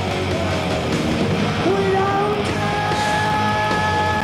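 Live punk rock band playing: electric guitars and drums, with a shouted lead vocal holding a long note in the second half.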